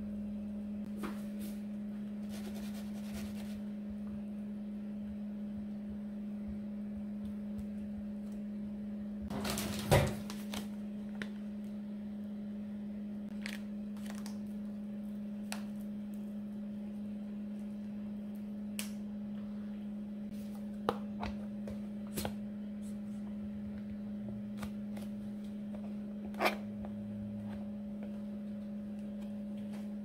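Light clicks and taps from hands working over a plastic food container of cucumbers in marinade, with one louder clatter about ten seconds in. A steady low hum runs underneath.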